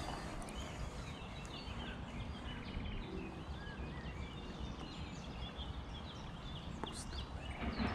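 Several small birds chirping and singing continuously, in many short quick phrases, over a steady low rumble on the microphone.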